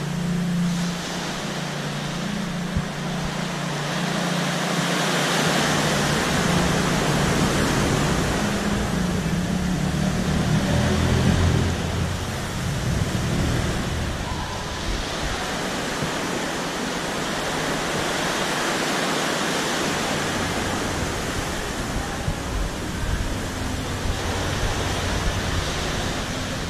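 Sea surf washing at the mouth of a sea cave: a steady rushing noise, with a low drone underneath that shifts in pitch a few times.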